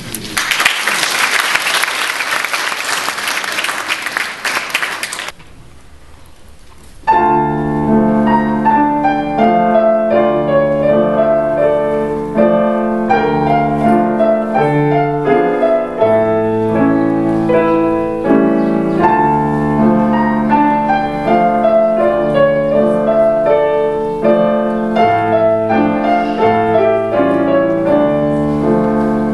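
Audience applause for about five seconds, then after a short pause a grand piano begins about seven seconds in, played six-hands by three pianists at one keyboard: a classical piece in steady, busy notes.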